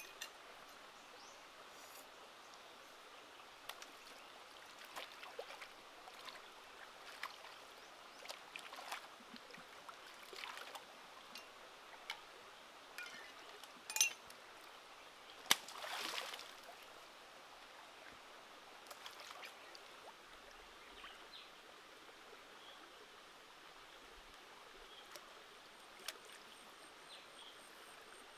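Shallow stream flowing over rocks, with scattered small splashes and clicks as hands work in the water. Sharp clicks about halfway through are followed by a louder splash lasting about a second.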